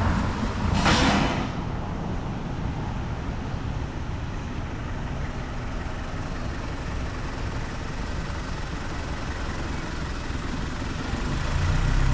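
City street traffic with vehicle engines running. A short loud hiss comes about a second in, and a heavy engine grows louder near the end as a large vehicle comes close.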